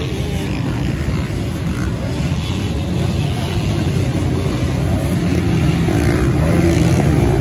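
Motocross bike engines running as a dense, steady rumble, growing slightly louder toward the end.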